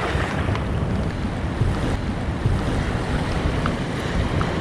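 Wind buffeting the microphone over the wash of sea waves on a breakwater: a steady, rumbling noise with a few faint ticks.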